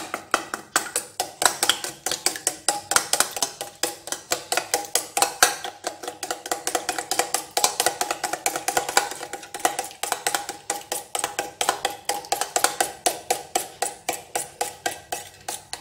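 Metal spoon beating raw eggs in a stainless steel bowl: rapid clinks of spoon on metal, about four or five a second, with the bowl ringing on between strokes.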